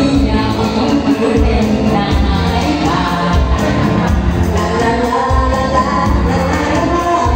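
Women singing a Thai song into microphones over a karaoke backing track with a steady beat. One voice hands over to another a few seconds in, amplified through a PA.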